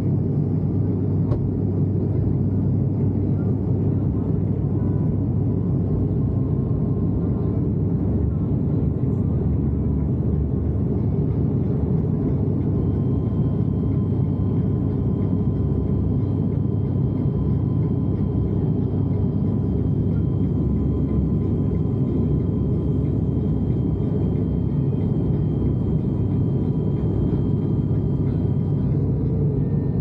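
Turboprop airliner's engines and propellers droning, heard from inside the cabin: a steady, dense low rumble with a faint high whine held at an even pitch.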